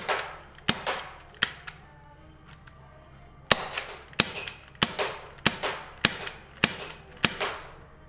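MGC fixed-slide Beretta M93R gas airsoft pistol fired semi-automatically, about a dozen sharp pops with a short ring after each. It fires a quick string of five in the first two seconds, pauses, then fires seven more at an even pace of under two a second. The slide is fixed, so each pop is the gas discharge alone, with no slide cycling.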